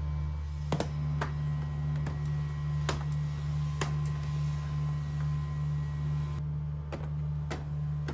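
Steady low hum with a handful of short, sharp clicks and taps as plastic interior trim and wiring are handled.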